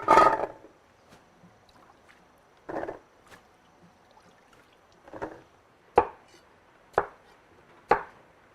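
A knife chopping food on a cutting board in single, separate strokes. A heavy first blow is followed by strokes about a second apart, which become sharper and crisper in the second half.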